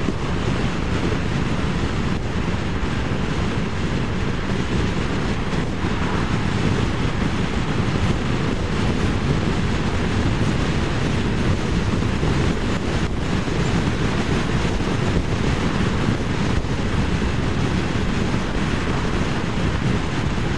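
Steady wind rush buffeting the microphone while riding a Vespa scooter at road speed, mixed with the scooter's running and tyre noise. Loud and unbroken throughout.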